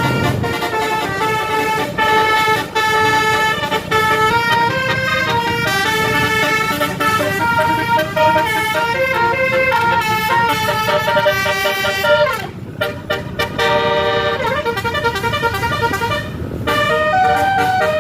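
Bus telolet basuri horn playing a melody: a run of musical horn notes stepping from pitch to pitch over a low rumble, breaking off briefly about two-thirds of the way through and then starting again.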